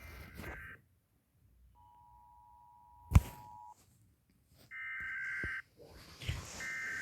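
US Emergency Alert System data bursts: harsh buzzy tone bursts under a second long, repeating with short gaps, with a fainter steady two-tone attention signal between them. A loud thump sounds about three seconds in.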